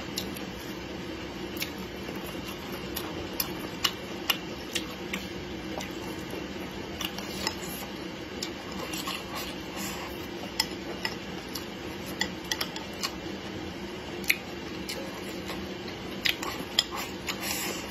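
Wooden chopsticks clicking and scraping against a ceramic bowl during eating, in irregular sharp clicks that come thickest near the end, over a steady low hum.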